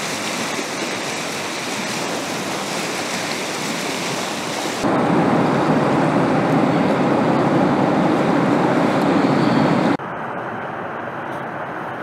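Fast-flowing river rapids rushing steadily over rocks. The water noise changes abruptly twice, becoming louder and deeper about five seconds in, then dropping back just before the end.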